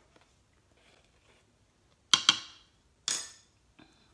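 Kitchen utensils clinking against a stainless steel cooker pot and the counter: two quick sharp clinks about two seconds in, then a third about a second later.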